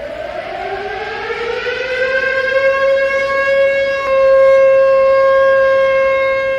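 Siren wail in the style of a civil-defence siren: the tone winds up in pitch over about the first three seconds, then holds a steady loud note.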